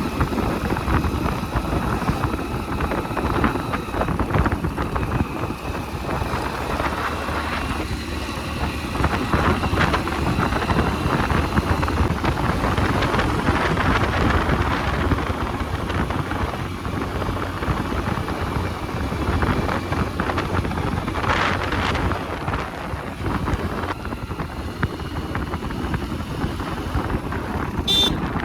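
Hero Splendor single-cylinder four-stroke motorcycle engine running during off-road riding, with wind buffeting the microphone. A short sharp click comes near the end.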